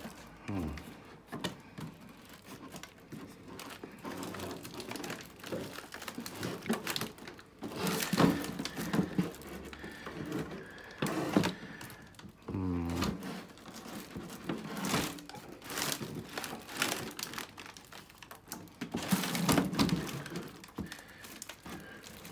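Plastic packaging crinkling, with irregular knocks and taps as hands handle a model aircraft fuselage and work at its canopy quick-release latch.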